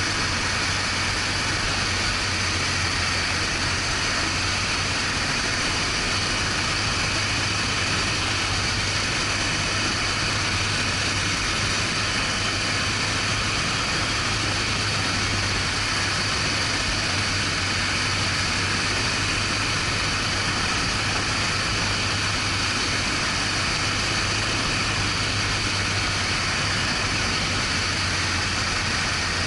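BMW R1200GS Adventure's boxer-twin engine running steadily, a constant low hum under an even hiss of wind and road noise.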